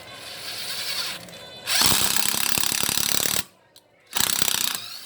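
Ryobi 14V cordless drill/driver motor run by its trigger: a run of about a second and a half that cuts off sharply, then a short second burst.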